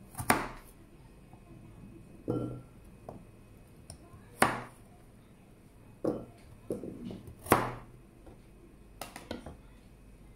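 Pieces of cut carrot dropped by hand into a bowl: three sharp clinks with a brief ring, a few seconds apart, and softer knocks between them.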